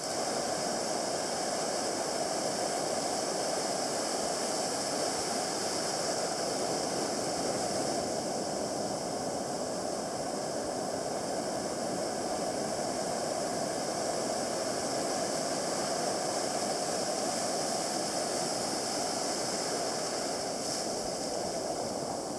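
Steady rush of breaking ocean surf and whitewater washing up the beach.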